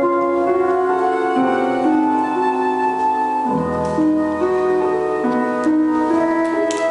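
Instrumental piano music, a melody moving note by note over held lower notes.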